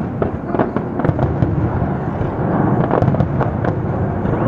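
Aerial fireworks bursting in rapid succession: many sharp cracks over a continuous rumble of bangs.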